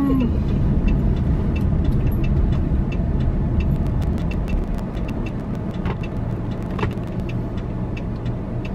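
Steady low rumble of a car driving slowly, heard from inside the cabin, with the hazard-light flasher ticking evenly throughout.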